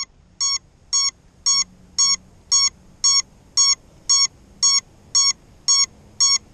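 Electronic beeper sounding short, evenly spaced beeps of one steady pitch, about two a second.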